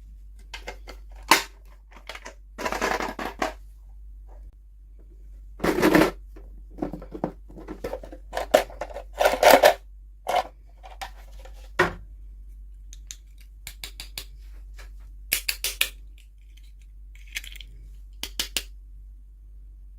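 Toy packaging being opened and handled: irregular crinkling and tearing of plastic and card, with a run of short sharp clicks in the second half.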